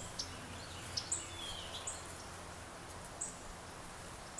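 Small songbirds giving short, high chip calls at irregular intervals, about one a second, some sliding down in pitch, over a faint steady outdoor hiss.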